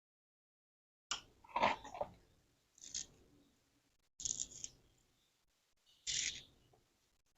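Silicone sealant being squeezed out of a tube in dabs, heard as four short squirting noises a second or two apart, as spots of adhesive are laid to fix the tub cover.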